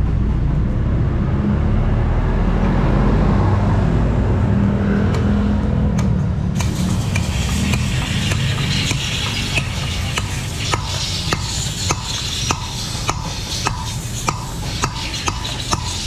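Low rumble of vehicle engines and traffic. From about eight seconds in, a run of sharp, irregular metal taps, one or two a second, as a steel rod is driven down to seat a tin-plate shim packed around the axle sleeve in a spoked motorcycle wheel hub.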